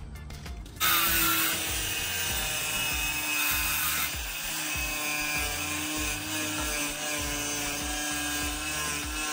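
A handheld power saw starts cutting a sheet of white wall board about a second in and runs steadily with a whine, throwing dust, over background music with a steady low beat.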